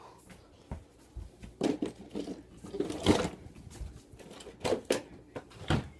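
Irregular handling noises from slime and its plastic containers: scattered taps and short scrapes, with a few louder squelchy bursts.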